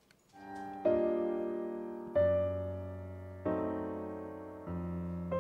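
Soft piano music fading in, then held chords struck about every second and a quarter, each one dying away before the next.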